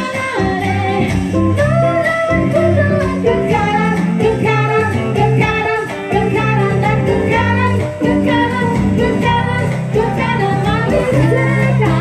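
Amplified music: a woman sings into a handheld microphone over band accompaniment with a strong, steady bass line.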